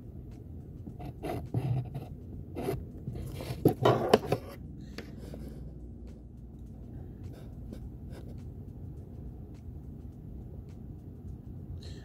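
Short scraping and rubbing noises from hand soldering work on a laptop trackpad connector, clustered about one to four and a half seconds in and loudest near four seconds, over a steady low hum.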